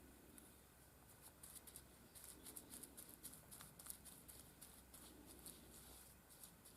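Near silence, with faint quick scratchy ticks from about a second in until near the end.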